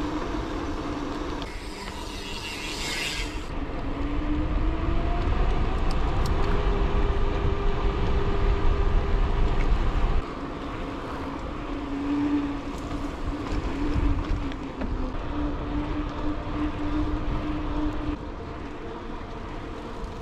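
Wind rumbling on the microphone of a moving mountain bike, with a hum whose pitch shifts up and down. A short hiss sounds about two seconds in, and the rumble grows louder, then drops suddenly about halfway through.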